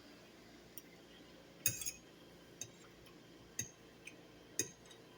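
Cutlery clinking against a plate or dish while eating: short sharp clinks about once a second, the loudest a little under two seconds in.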